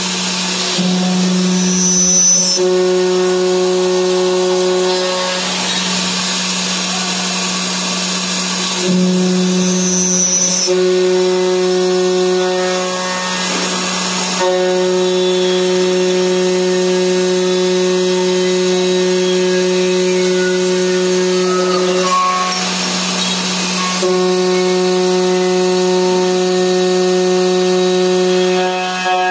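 Spindle of a CNC aluminium profile machining center running with a steady high whine as its end mill mills slots in an aluminium profile. The whine is broken three or four times by short bursts of rushing noise.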